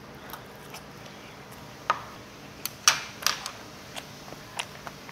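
Eating utensils clicking and tapping against dishes during a meal: several short, sharp clicks, most of them bunched around the middle.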